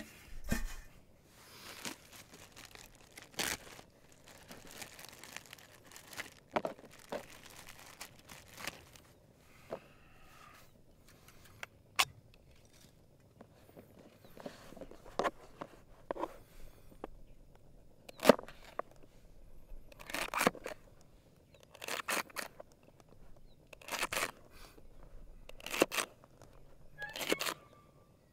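Knife slicing a vegetable on a plastic cutting board: each cut a short crunch with a tap of the blade on the board, spaced a second or two apart and more frequent in the second half. Earlier, scattered handling knocks and rustles.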